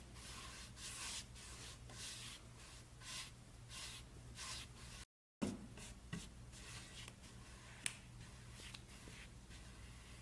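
Paintbrush bristles rubbing paint onto a wooden drawer front in repeated soft strokes, about one a second, over a steady low hum. The sound drops out briefly about five seconds in, and there is one sharp click near eight seconds.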